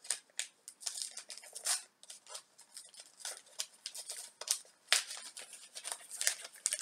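Wrapped packaging being unwrapped by hand: an irregular run of crinkles, rustles and sharp little clicks and scratches.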